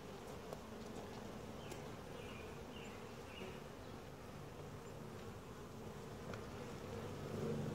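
Honeybees buzzing around an open hive: a faint, steady, even hum from a calm colony.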